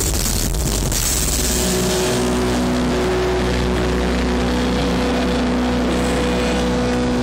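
Black metal band playing live, recorded on a phone from the crowd: loud distorted guitars and drums. After about a second and a half the drumming drops out, leaving sustained, droning guitar chords and a deep bass hum.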